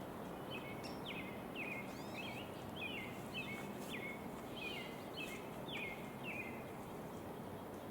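A bird calling, a run of about eleven short repeated notes at roughly two a second that stops near the end, over a steady background hiss.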